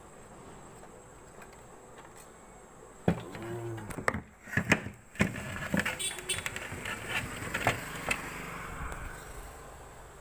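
Hand work on a mixer grinder's coupler: a run of sharp clicks, knocks and scraping of plastic and metal parts, as the new coupler is turned onto the motor shaft, starting about three seconds in.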